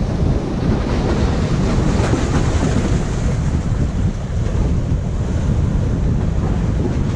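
Steady surf washing against jetty rocks, mixed with wind buffeting the camera microphone.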